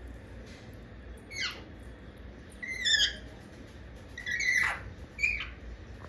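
Indian ringneck parakeet calling: four short squawks, mostly falling in pitch, the second and third the loudest.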